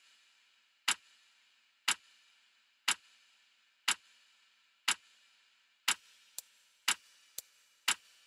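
Ticking clock, one sharp tick each second; from about six seconds in, a fainter tick falls between the beats.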